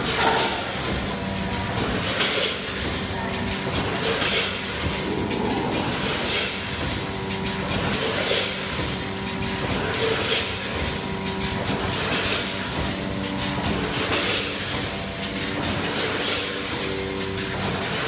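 Popcorn packaging machine, a multihead weigher feeding a vertical form-fill-seal bagger, running at about 30 bags a minute. A hissing rush comes about every two seconds, once per bag cycle, over a steady mechanical hum with whirring tones that come and go.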